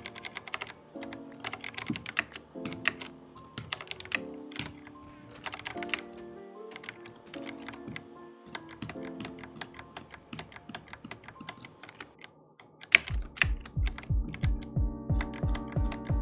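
Rapid typing and key presses on a Ducky One 3 mechanical keyboard with Cherry MX Brown switches, a dense run of clacks over background music. About 13 seconds in, a run of deep thumps sets in, about three a second.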